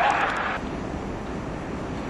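Class 47 diesel locomotive passing with its train, a loud rushing rumble that cuts off abruptly about half a second in. A quieter, steady rumble of a train drawing into a station follows.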